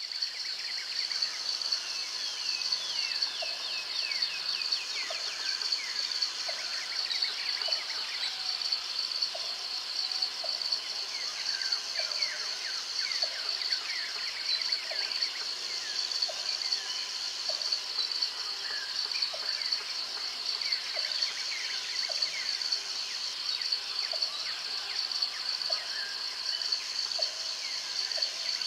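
Nature ambience of insects trilling steadily on one high note, with many short falling bird chirps over it and a faint regular tick about once a second.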